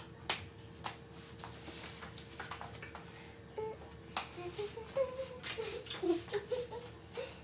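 Scattered light clicks and handling noises, with a faint wavering voice, like soft humming, from about halfway on.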